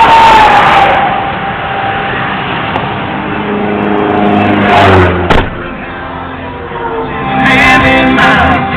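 Highway traffic passing close by: vehicles go by one after another, the loudest right at the start with a falling whine as it passes, another about five seconds in ending with a short knock, and a third near the end.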